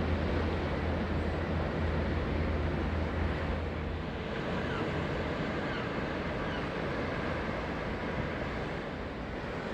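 Steady wash of ocean surf with wind noise on the microphone, and a low rumble that stops about four seconds in.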